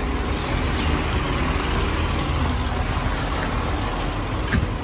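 Steady hum of a motor-driven papad-making machine running.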